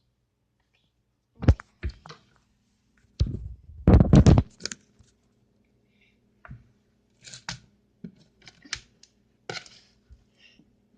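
Handling noises from crafting: irregular knocks and clicks, loudest in a cluster about three to four seconds in, with a faint steady hum setting in about two seconds in.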